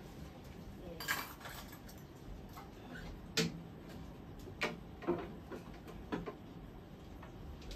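A handful of separate sharp clinks and knocks, about five spread over several seconds, over low room noise.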